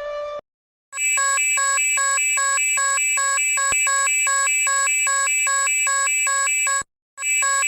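Electronic emergency alert tone: a loud, fast-repeating pattern of alternating beeps about two times a second. It starts about a second in, after a long steady alarm tone cuts off and a short silence, and it breaks off briefly near the end before starting over.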